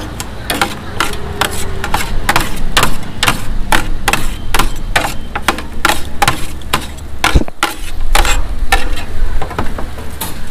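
Metal spatulas clanking and scraping on a flat steel griddle as chicken is chopped and tossed, with sharp irregular clanks a few times a second.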